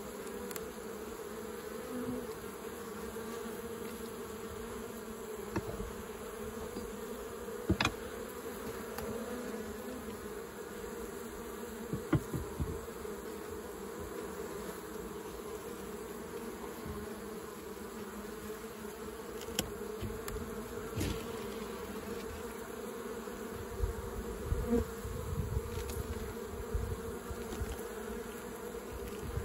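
Honeybees buzzing in a steady hum as foragers come and go at the hive entrance. A few brief knocks stand out, the loudest about 8 and 12 seconds in.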